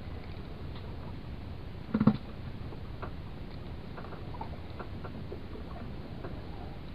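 Light, irregular ticks and taps from a spinning reel and rod being handled, over a steady low wash of wind and sea. About two seconds in comes a brief louder low-pitched sound.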